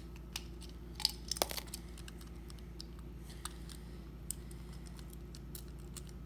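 Tool prying at a Hot Wheels die-cast car to split its body from its base: scattered light clicks and scrapes, with a few sharper clicks about a second in.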